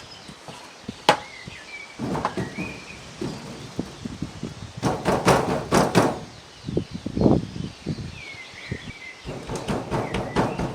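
Knocks and clatter of a wooden window and its metal hinges being handled and set against the coop wall, with a sharp knock about a second in and bursts of rattling around the middle and near the end. Birds chirp now and then.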